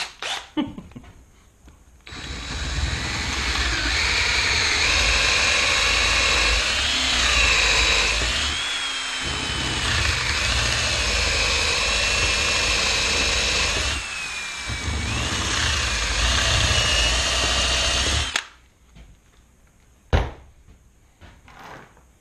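Power drill running under load, boring into wood. Its motor whine wavers in pitch and eases off briefly twice before the drill stops. A single sharp click follows.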